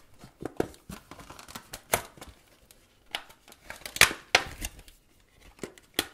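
Retail packaging of a phone battery kit being opened and handled by hand: irregular clicks, rustles and scrapes of cardboard and plastic, the loudest click about four seconds in.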